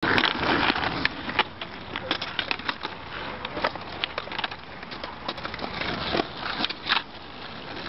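Skateboards rolling on asphalt with many sharp clacks of wooden decks popping and slapping down on the road during flip tricks.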